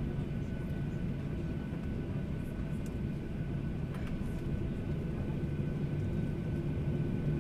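Cabin hum of a Boeing 737-800's CFM56 jet engines running at low power after landing: a steady drone with a low hum and a faint constant whine.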